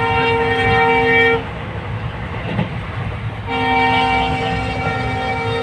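Train horn sounding long, steady blasts, heard from inside a moving passenger coach: one blast ends about a second and a half in, and another starts about two seconds later and holds on. The low rumble of the carriage running on the rails goes on underneath.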